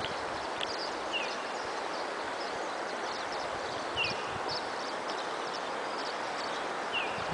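Steady rush of flowing river water, with light splashing. A bird gives a short, downward-sliding chirp three times, about three seconds apart.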